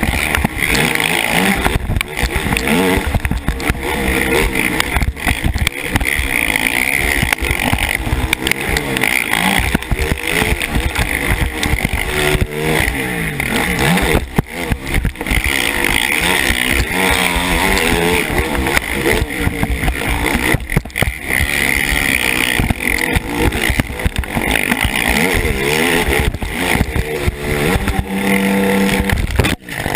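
KTM 450 SX race quad's single-cylinder four-stroke engine revving up and falling off again and again as it is ridden hard around a motocross track, with heavy wind and rumble on a helmet-mounted microphone.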